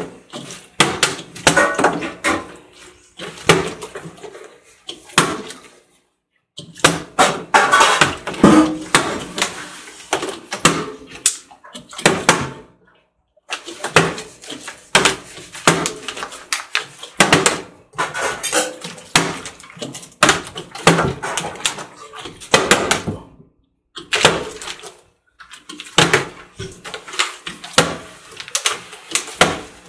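Plastic water bottles being flipped and landing on a glass tabletop: a long run of sharp thuds and knocks, with a few short silent gaps.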